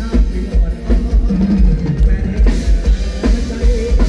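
Live band playing amplified music, led by a drum kit with a steady pounding bass-drum beat and snare hits.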